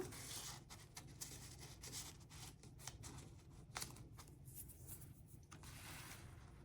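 Faint rustling and light taps of paper and cardstock being handled, with a slightly longer rustle near the end.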